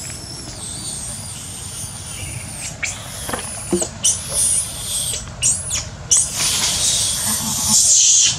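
Baby macaque screaming in distress: a long high-pitched squeal, then several short rising-and-falling squeals, breaking into loud, harsh continuous screams from about six seconds in.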